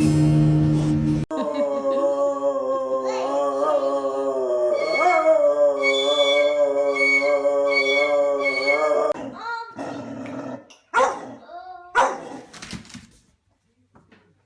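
A dog howling: one long, wavering howl of about eight seconds, then two or three shorter howls that fall in pitch near the end. Music plays briefly at the start.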